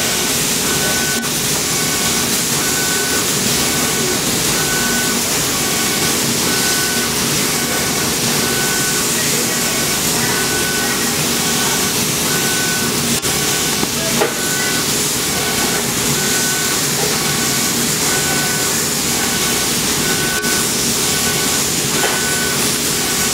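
Laser cutting machine running over fabric: a steady loud hiss, with a short tone repeating about once a second as the cutting head moves from one slit to the next. There is one brief knock about two-thirds of the way through.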